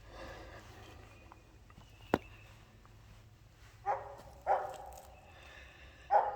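Three short, sharp animal calls, about four, four and a half and six seconds in, after a single sharp click a little over two seconds in.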